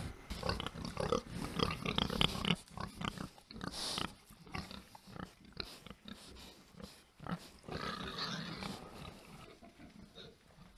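Domestic pigs grunting and snuffling at close range, in short irregular bursts.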